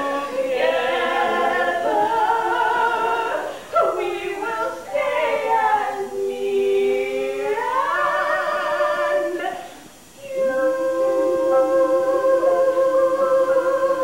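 Women singing a show tune with vibrato; the voices break off briefly about ten seconds in, then hold a long note.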